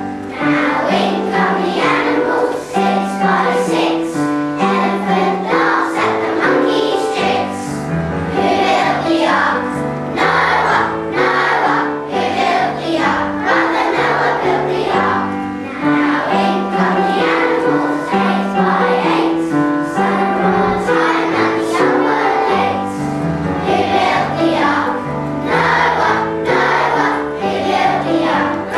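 A choir of young children singing a song together over instrumental accompaniment, continuously.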